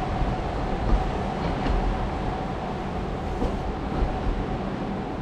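Steady background hum and noise with a faint constant tone, and a few light clicks and knocks.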